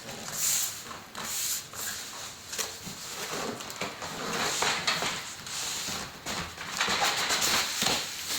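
Packaging of a PC case being handled during unboxing: irregular rustling and scraping of cardboard and plastic, with small knocks.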